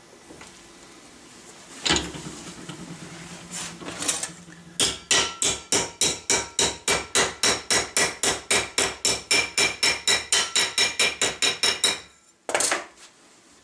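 Hammer striking a sheet-metal ramrod thimble blank clamped in a bench vise, bending it over to shape. There is a single blow about two seconds in and a few more, then a quick, even run of about four ringing taps a second for some seven seconds, and one last blow near the end.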